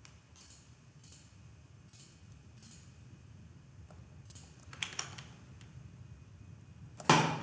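Faint, irregular clicks and taps of a computer mouse and keyboard, a few a second at most, with a louder short sound near the end.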